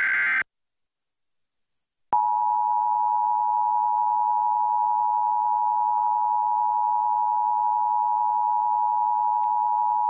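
The last fraction of a SAME digital header burst, a harsh data screech, cuts off just after the start. After about two seconds of silence comes the Emergency Alert System attention signal: the steady two-tone 853 and 960 Hz alert, held for about eight seconds and stopping abruptly. It signals that an emergency alert message follows, here a required monthly test.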